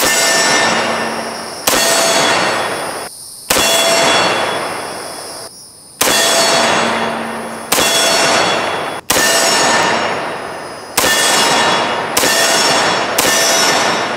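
Nine rifle shots from a .308 AR-10 fitted with a Southern Precision Tooling HU-DU muzzle brake, fired one every one to two and a half seconds. Each shot is followed by a ringing clang from a steel target that fades away over a second or two.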